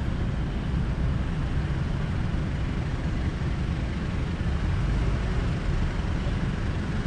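Steady low rumble of wind on the microphone mixed with distant vehicle noise, with no single event standing out.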